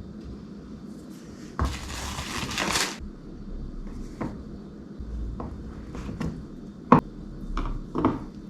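Kitchen handling sounds while a cheese platter is put together: a rustle of about a second and a half, then several short knocks and clicks of dishes and utensils being handled, the sharpest near the end.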